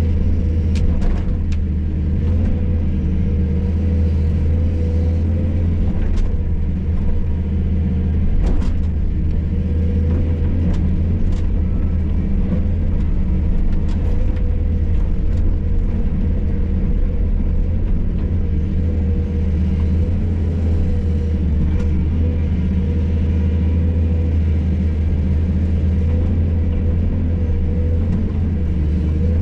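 Hydraulic excavator's diesel engine running steadily under load, with scattered sharp knocks and clatters from the bucket working concrete floor rubble.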